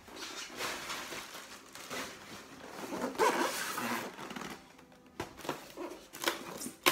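Packaging being handled during an unboxing: a scraping, rustling noise of cardboard and packing material sliding, strongest around the middle, followed by a few sharp clicks or knocks near the end.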